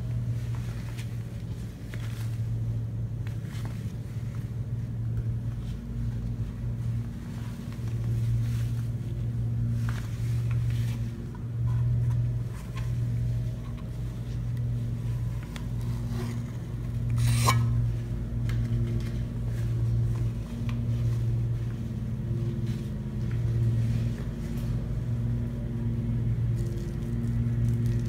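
Lawn mower engine running at a steady pitch, its drone rising and falling in loudness as the mower moves. A single sharp click comes a little past halfway.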